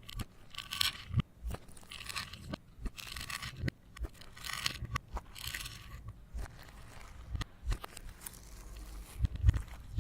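Slime being worked and mixed by hand, giving short bursts of crackling, scraping noise about five times, with small clicks between them and a louder knock near the end.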